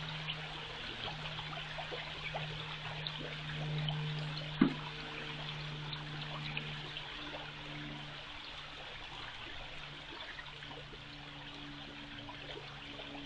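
Water running and trickling steadily, with a single sharp knock about four and a half seconds in.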